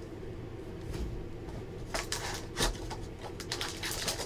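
Trading cards and a foil card pack being handled: a few light clicks and rustles about two seconds in and again near the end, over a low steady hum.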